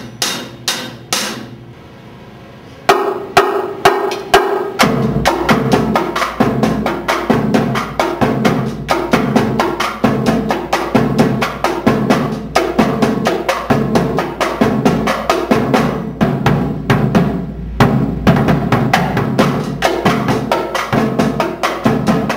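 High school marching drumline playing a cadence together: snare drums, tenor drums, bass drum and crash cymbals. A few separate sharp clicks come first; the full rhythmic pattern starts about three seconds in, and the deep bass drum comes in a couple of seconds later.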